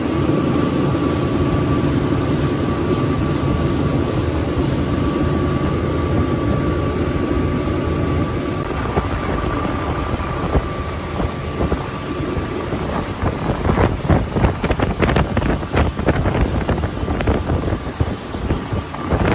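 Twin 300 outboard motors running at cruising speed, mixed with the rush of the hull and wake through the water and wind on the microphone. In the second half, gusts of wind buffet the microphone in choppy bursts that become the loudest sound.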